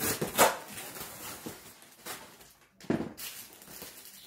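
Cardboard box flap being pulled back and torn open, with rustling as the packed clothes are handled. There are two short, loud rasps: one about half a second in and one about three seconds in.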